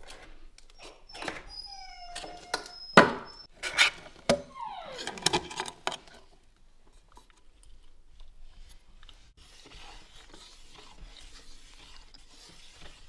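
Metal lid of a gallon paint can being worked open: several sharp clicks and knocks, the loudest about three seconds in, mixed with a few short squeaks during the first six seconds, then only faint rubbing.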